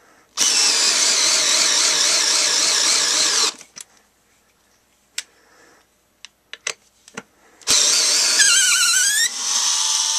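Genesis 7.2 V lithium-ion cordless screwdriver, set to drill mode, running as it drives a screw into wood: a run of about three seconds, a pause with a few clicks, then a second run near the end whose whine wavers and dips in pitch as the motor loads up.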